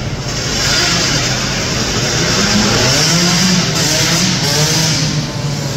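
Small two-stroke engines of youth 50cc/65cc dirt bikes revving hard as they pull away from a race start, the pitch rising and falling as they accelerate.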